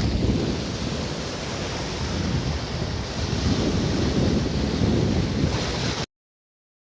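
Sea waves washing onto a stony beach, with wind buffeting the phone's microphone into a heavy low rumble. The sound cuts off abruptly about six seconds in.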